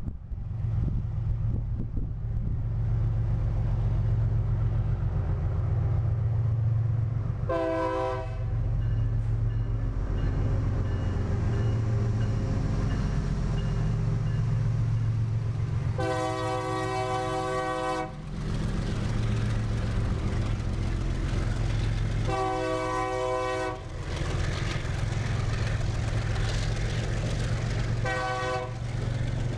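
Freight train passing close by, its GE diesel locomotive's engine running steadily under a multi-tone air horn that sounds four times: a short blast, a long one of about two seconds, a shorter one, and a brief one near the end. After the locomotive goes by, the freight wagons roll past on the rails.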